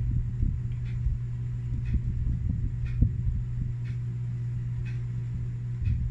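A marker writing on a whiteboard over a steady low hum, with small irregular knocks. Faint ticks come about once a second.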